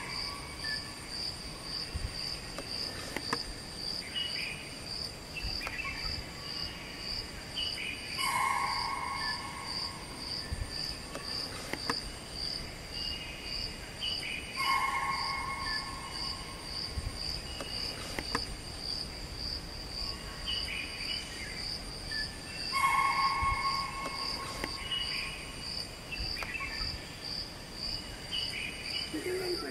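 Forest insects chirping in a steady high-pitched pulse, about two chirps a second, with a short call coming back every six to eight seconds.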